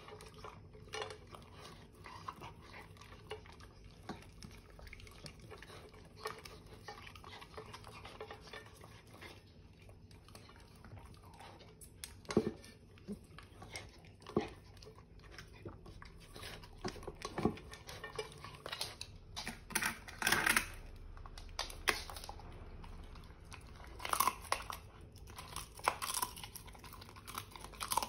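Mini Bully dog eating raw food and licking a stainless steel bowl: wet chewing and lapping, with scattered clinks of the metal bowl that grow more frequent in the second half.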